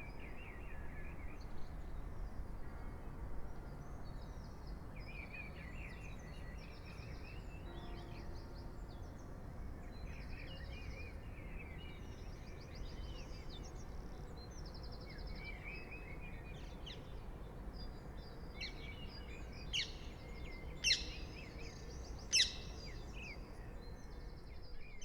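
Songbirds calling and singing in short trills and chirps over a steady low rumble of ambient noise, with three sharp, louder calls near the end.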